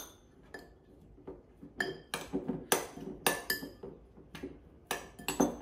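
Metal spoon clinking and scraping against a glass mixing bowl while mashed potato is mixed, in irregular taps, roughly two a second, some ringing briefly.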